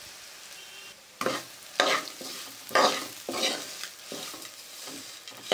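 Steel spoon stirring grated coconut into the tempering in a steel pan, scraping the metal, over a low sizzle of frying in ghee and oil. The sizzle is heard alone for about a second, then about six separate scraping strokes follow.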